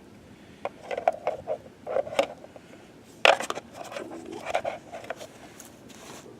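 Close handling noises: a run of short rustles, scrapes and clicks, with one sharp, loud clack about three seconds in.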